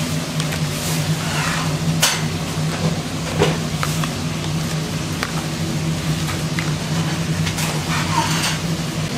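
Plastic lids being set and snapped onto plastic takeaway tubs, giving scattered light clicks and plastic knocks over a steady low hum.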